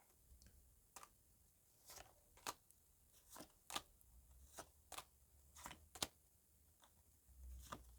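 Near silence broken by faint, irregular light clicks and taps of tarot cards being handled.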